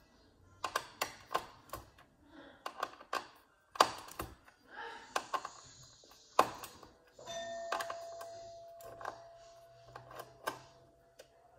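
Irregular small clicks and taps of a Torx screwdriver working the metal retention screws and frame of a Threadripper CPU socket as the screws are loosened. The two sharpest clicks come about four and six and a half seconds in, and a faint steady tone sounds in the last few seconds.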